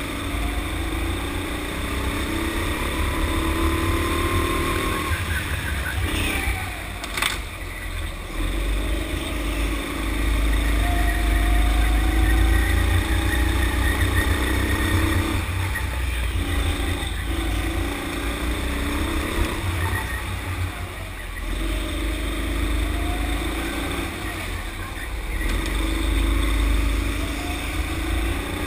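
Sodi rental kart engine heard from on board during hot laps, its pitch climbing along the straights and falling away as the driver lifts for a corner every few seconds, over heavy low rumble. A sharp knock about seven seconds in.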